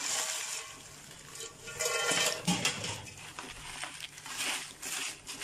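Crisp broken pieces of bread tipped into a frying pan of melted butter, oil and garlic and turned over with a wooden spoon: crackly rustling and scraping in irregular bursts.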